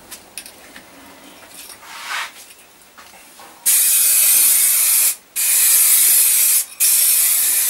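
Aerosol can of Halfords grey enamel spray paint hissing in three bursts with short breaks between, starting about halfway through: a top coat being sprayed on. Before the spraying there are only a few light knocks.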